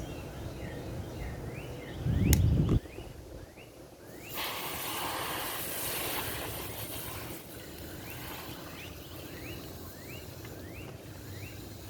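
Outdoor background with short rising chirps repeating about twice a second, a brief low rumble about two seconds in, and a rushing hiss for a few seconds from about four seconds in.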